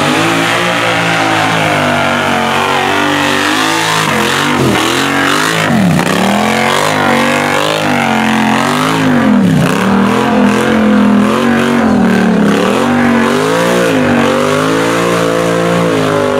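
Lifted ATV engine revving hard as the quad churns through a deep mud hole, its pitch repeatedly dropping and climbing again as the throttle is worked.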